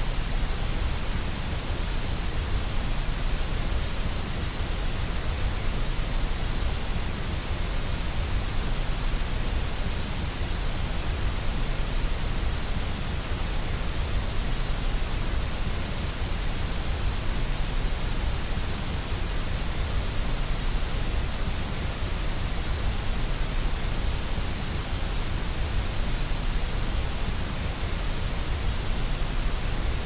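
Steady white noise: an even, unchanging rush with no other sounds.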